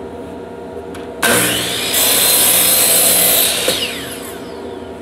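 DeWalt miter saw starting up about a second in and cutting through a wooden board, then switched off and winding down with a falling whine as the blade is held down in the cut until it stops.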